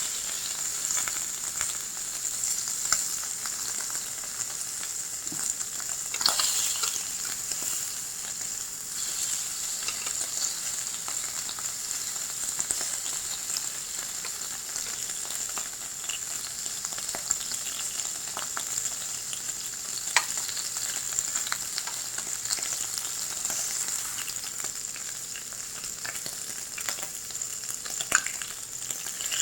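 Japanese A5 wagyu beef searing on a hot iron plate: a steady high sizzle with scattered crackles of spitting fat, and a few louder pops.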